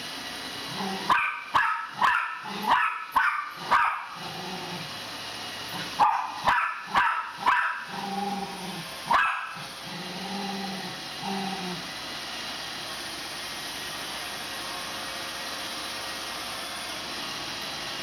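A miniature pinscher barking at a running Roomba robot vacuum: a quick run of about seven sharp barks, then four more and a single one, with low growls between them. The robot vacuum's steady running hum goes on underneath and is all that is left for the last several seconds.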